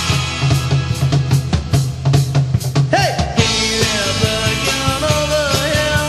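Instrumental break in a 1960s-style garage rock song: rapid drum hits over a heavy bass line, then the full band comes back in, brighter and with held tones, about three and a half seconds in.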